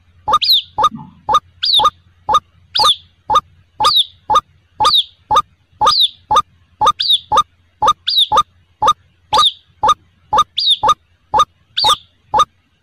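White-breasted waterhen (ruak-ruak) calling: a fast, even run of sharp notes, about two a second. Every other note has a high downward slur. A faint low hum runs underneath.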